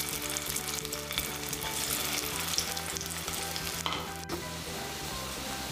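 Green-pea kabab patties shallow-frying in hot oil in a kadhai, sizzling and crackling steadily. A single sharp click comes about four seconds in.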